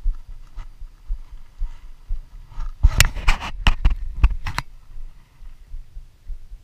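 A spinning rod and reel being handled: a quick run of about eight sharp clicks and knocks about three seconds in, over a steady low thumping.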